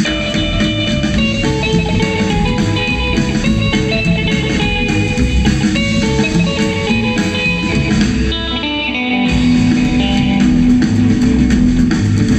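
Rockabilly band playing an instrumental passage, an electric guitar picking a lead line over bass. About eight seconds in, the low end drops out for a moment, then the band comes back in louder with a held low note.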